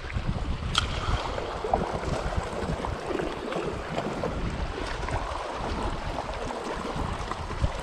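Small waves lapping and washing against shoreline rocks, with wind buffeting the microphone in a low, gusty rumble and a single sharp click about a second in.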